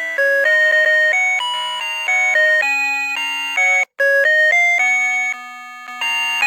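Electronic melody chime of a Citizen Snoopy R725 alarm clock playing one of its tunes in bright, clean notes, with a lower accompanying part. The tune cuts out for an instant about four seconds in.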